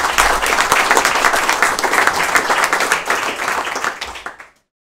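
Applause, many hands clapping together, fading out about four and a half seconds in.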